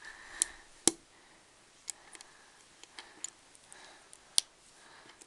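Small plastic Lego pieces clicking and snapping together as they are fitted by hand, with faint handling noise between scattered sharp clicks; the loudest click comes about four seconds in.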